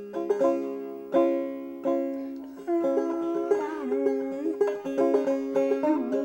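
Banjo playing an old-time tune: a quick run of plucked notes, each ringing and fading. Some notes waver in pitch about halfway through and again near the end.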